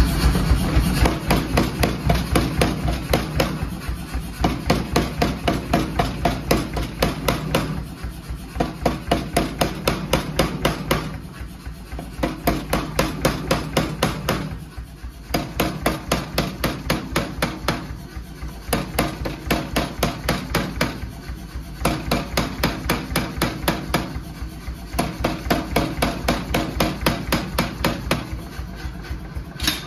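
A power hammer striking a handled top tool on a glowing stainless steel bar held in tongs, drawing the bar down. Rapid blows come several a second in runs with brief pauses, over the machine's steady low running hum.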